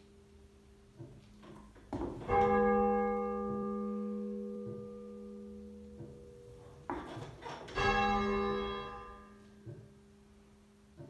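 Half-muffled 10 cwt tenor church bell tolled by rope: two strokes about five and a half seconds apart, each ringing out and fading slowly, with fainter knocks in between.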